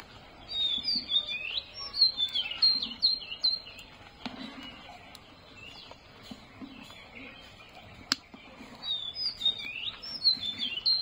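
Small birds chirping in quick runs of short high notes, in two spells with a quieter lull between. A single sharp click about eight seconds in.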